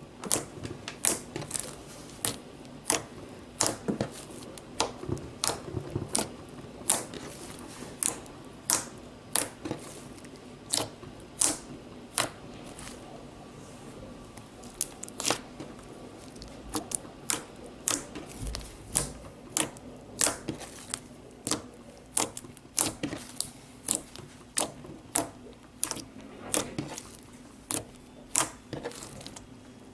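Purple slime being squeezed and folded by hand, giving off a run of sharp, irregular clicks and pops, roughly one or two a second, as air pockets in it burst.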